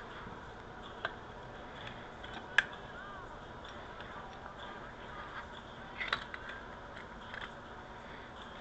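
Small parts of a disassembled carburetor being handled: scattered light clicks and taps, with one sharp click about two and a half seconds in and a short cluster of clicks about six seconds in, over a steady low hiss.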